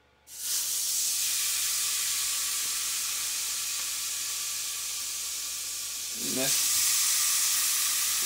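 Raw seasoned chicken sizzling on the hot grill plate of a PowerXL electric indoor grill. A loud sizzle starts suddenly as the first piece goes down and grows louder about six seconds in as a second piece is laid beside it.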